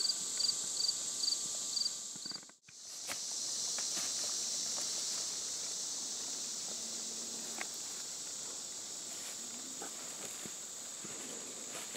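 Steady high-pitched drone of an insect chorus in late-summer woods, with one insect chirping about three times a second for the first two seconds. After a brief dropout, scattered light footsteps and twig snaps in dry leaves sound over the drone.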